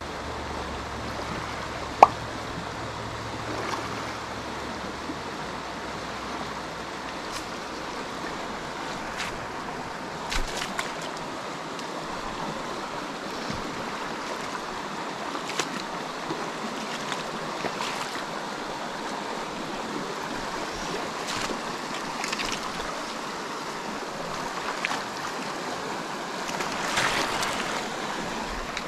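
Shallow rocky mountain creek rushing steadily over stones in a riffle. A single sharp click comes about two seconds in, with a few faint knocks later on.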